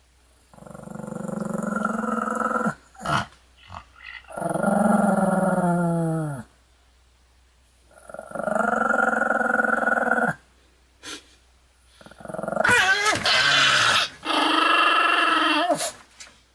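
Pomeranian growling in long drawn-out growls, five in all, each about two seconds with short pauses between, the last two higher and wavering. A few brief sharp sounds fall between the first growls.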